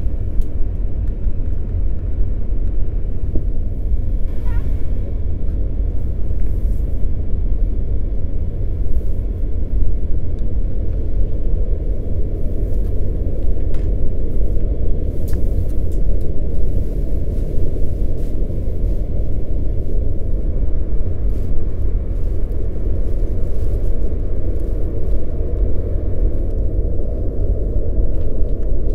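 A steady, loud low rumble with no clear rhythm or pitch, and a few faint clicks over it.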